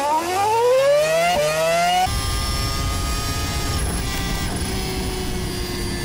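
Onboard sound of a 2018 Red Bull RB14 Formula 1 car's 1.6-litre turbocharged hybrid V6 accelerating flat out. The pitch climbs through the gears with an upshift about 1.4 s in. After about two seconds the engine holds near-steady high revs at speed with a high whine, sagging slightly toward the end.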